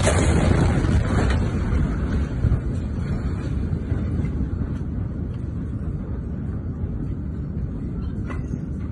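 Heavy low rumble with wind buffeting the microphone, loudest at first and slowly fading.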